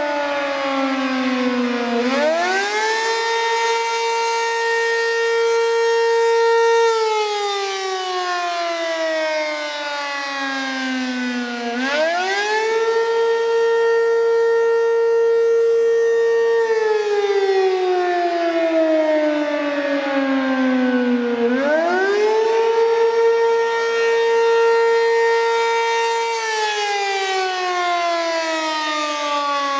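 ACA P15 fire siren sounding a test wail, one tone rich in overtones. It climbs quickly to a steady high pitch, holds for about four seconds, then slides slowly down for about five seconds before climbing again. That makes about three full rise-and-fall cycles, one every ten seconds or so.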